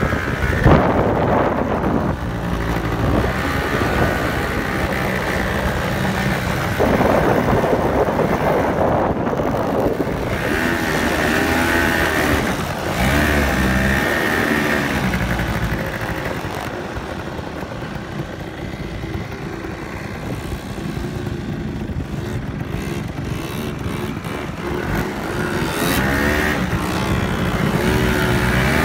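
Quad bike (ATV) engines running and revving as several machines ride over sand, the pitch rising and falling. The sound is quieter for a stretch past the middle.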